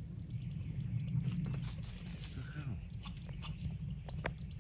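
Red squirrel chattering in an alarm call: runs of short, high chirps that step down in pitch, once at the start and again in the second half, with a few soft knocks and rustles.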